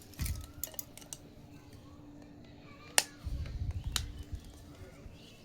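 Small plastic toy kitchen pieces being handled: a few sharp clicks and taps, one louder click about three seconds in, then about a second of rustling handling noise.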